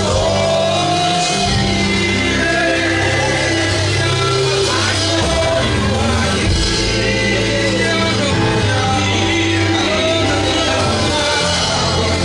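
Live gospel worship music: a band with held keyboard notes and bass, and voices singing over it with occasional shouts.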